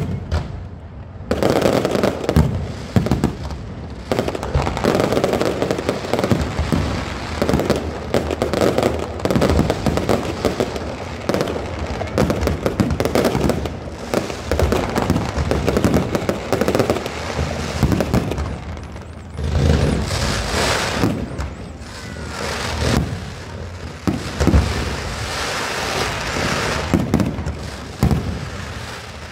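Fireworks display: aerial shells bursting in a rapid, near-unbroken barrage of bangs and crackle. It starts after a short lull about a second in.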